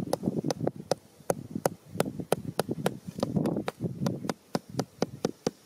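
A hammer tapping a thin stick down into sandy soil: quick light knocks, about three a second, with the scrape of a hand and sand between them.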